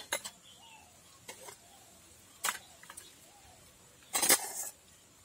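Small stainless steel cups clinking against one another and against the rim of a steel steamer pot as they are set in place for steaming idli. A few separate knocks come first, then a louder cluster of clinks about four seconds in.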